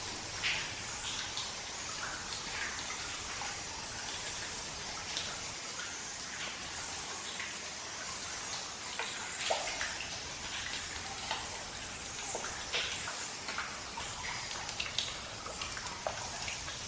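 Cave ambience: water drops falling irregularly, many short ticks a second or so apart, over a steady hiss of background water.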